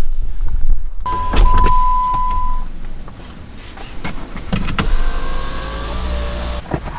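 Knocks and clicks inside a 2014 Jeep Compass as things are handled, with a steady beep about a second in lasting over a second. Near the end a small electric motor in the car whirs for about two seconds and stops suddenly.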